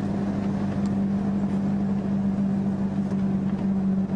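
Vehicle engine running steadily with road noise, heard from inside the cabin as a low, even drone.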